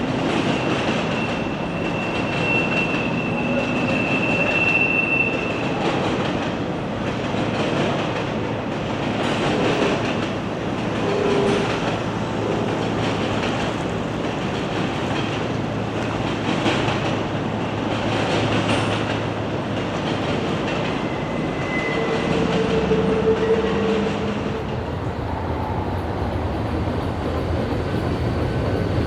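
Intermodal freight cars rolling steadily past, wheels clattering over the rail joints, with brief squeals from the wheels now and then.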